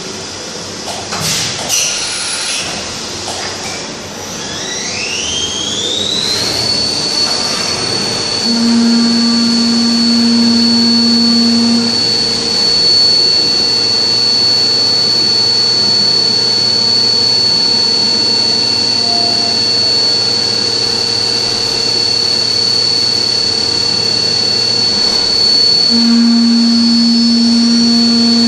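Leadwell V-50L vertical machining centre: a few knocks and clatters in the first seconds, then the spindle spins up with a whine rising over about two seconds and holds a steady high whine while milling under flood coolant spray. A lower hum comes in twice for a few seconds.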